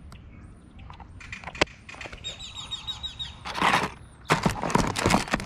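Clicking and clattering of plastic tackle boxes and fishing lures being handled, loudest in two bursts past the middle. A rapid high chirping sounds briefly about two seconds in.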